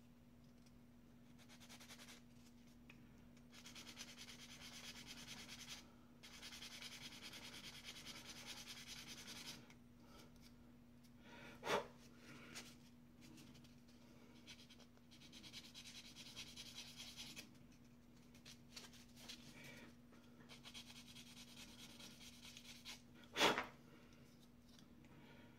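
Faint scratchy hiss of a fingernail buffing block rubbed in quick strokes over a small plastic model-kit part, coming in stretches of a few seconds, as a leftover sprue nub is sanded flush. Two short sharp sounds break in, one about halfway through and a louder one near the end.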